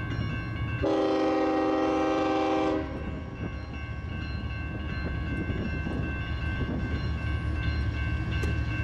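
Locomotive horn sounding one chord blast of about two seconds, about a second in, over the steady low rumble and whine of a train running.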